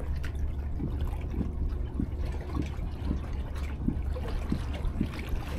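Distant fireworks, heard but not seen: a string of short, muffled thuds, two or three a second, over a steady low rumble.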